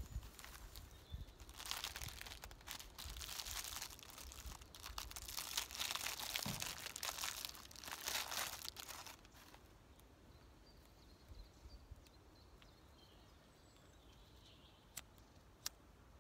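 Cloth bag and wrappings rustling and crinkling as they are handled and unwrapped by hand, in uneven bursts, until it stops about nine seconds in. After that it is quieter, with faint high bird chirps and two small clicks near the end.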